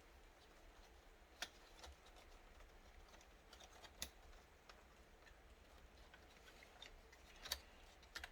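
Faint clicks and taps of small laptop parts being handled during a screen repair. Three sharper clicks stand out, about a second and a half, four and seven and a half seconds in, over near silence.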